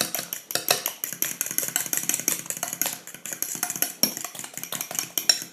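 A metal fork beating a liquid egg and crème fraîche mixture in a glass bowl: a rapid, steady run of clicks as the fork strikes the glass.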